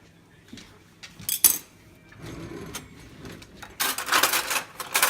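Kitchen utensil handling: a couple of sharp clicks about a second and a half in, then, near the end, a dense run of rapid scraping and clicking, as a table knife works butter.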